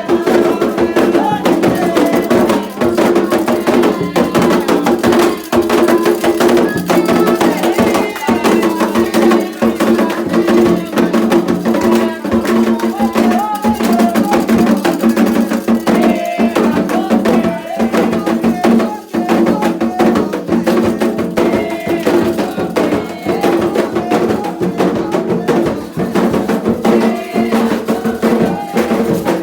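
Candomblé ritual music: atabaque hand drums beating a fast, steady rhythm with a struck bell keeping time, under group singing of chants for Xangô.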